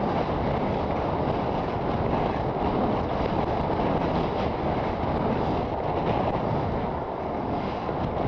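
Steady rushing noise of sliding fast down a groomed snow slope: skis or board scraping over the snow, mixed with air rushing over the moving camera's microphone.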